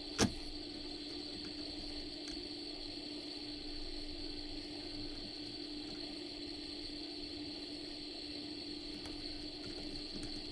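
Hot air rework station blowing a steady stream of air at 40% airflow onto a circuit board to melt the solder on a multi-pin through-hole part: a steady hiss with a low and a high steady tone from its fan. A single sharp click comes about a quarter second in.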